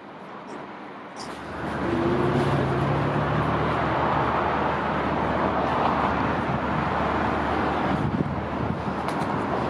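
Steady rumble of a motor vehicle running, with road or traffic noise, that sets in suddenly about a second in.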